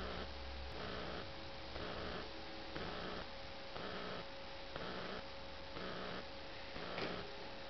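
Electric drive motors of an ER1 robot whining as it turns to track a face, the tones switching back and forth about twice a second over a steady electrical hum.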